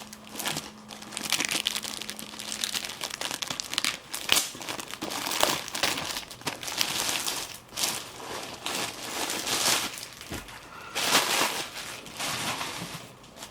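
Plastic packaging crinkling and rustling in irregular bursts as it is handled, with louder crackles about four seconds in and again near the end.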